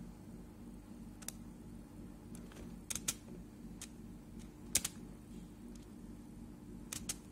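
Computer mouse buttons clicking a handful of times, several of them in quick pairs, over a steady low hum.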